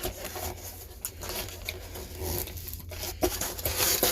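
Irregular rustling and a few light clicks from parts and packaging being handled, over a steady low hum.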